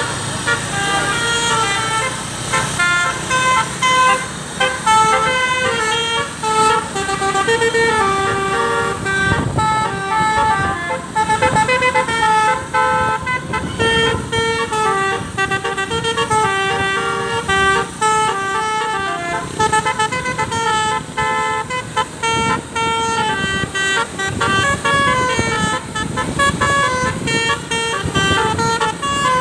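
Basuri telolet multi-tone bus horn playing a long, continuous melody of short stepped notes.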